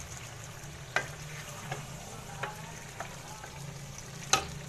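Wooden spoon stirring a thick potato, chicken and capsicum curry in a pan, the curry sizzling. The spoon knocks against the pan about five times, loudest near the end.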